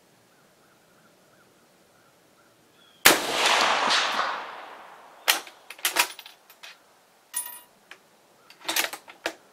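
A single shot from a 6.5x55mm Swedish M96 Mauser long rifle about three seconds in, with a long echoing decay. Then the bolt is worked by hand: a series of metallic clicks, a short bright ring like the spent brass case landing, and more clicks as the bolt is closed near the end.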